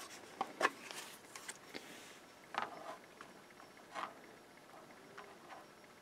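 Faint, scattered clicks and taps of a Sharp pocket scientific calculator being handled: its hard flip cover opened and its keys pressed to work out a multiplication.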